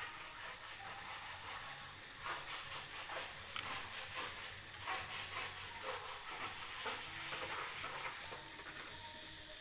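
Leaves and stems of a leafy plant rustling and crackling as a baby macaque pulls at them and clambers through the plant, in a run of short irregular crackles.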